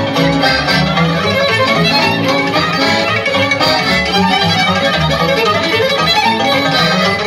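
Lively Romanian folk dance music led by a fiddle, with plucked strings and a steady bass beat.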